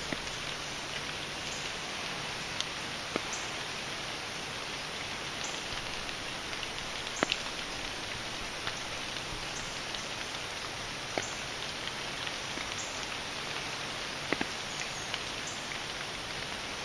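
Steady rain falling in woodland, an even hiss with a few sharper, louder drops landing close by now and then.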